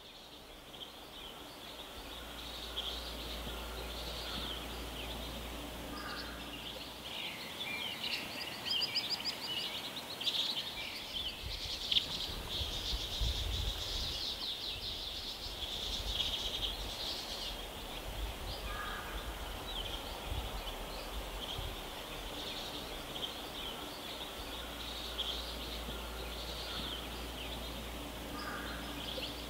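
Outdoor ambience of birds chirping and singing, many short chirps with a few fuller song phrases, over a steady hiss and a low rumble; it fades in over the first couple of seconds.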